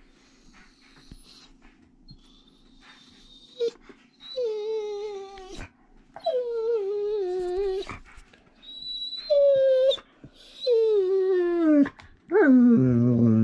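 Siberian husky whining and moaning: faint high whines, then from about four seconds in a string of five drawn-out calls, each sliding down in pitch, the last with a low rough edge. It is the grumbling of a husky annoyed by the other dogs.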